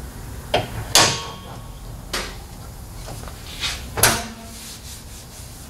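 Hood of a 1985 Toyota Celica GTS being lowered and pushed down onto its latch: a handful of sharp knocks and clunks, the loudest about a second in and about four seconds in, the last ringing briefly.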